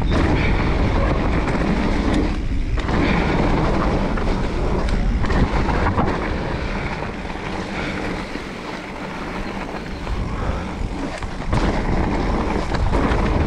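Specialized Turbo Levo e-mountain bike running fast down a wet dirt trail. Wind buffets the camera's microphone over the tyre noise, and the bike rattles and knocks over bumps. The noise eases off a little past the middle, then builds again near the end.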